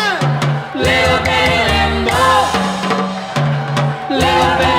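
A 1960s Eastside Sound rhythm-and-blues dance record playing from a 45 rpm vinyl single, transferred straight from the turntable: a band section with the drum kit and bass to the fore and no sung words.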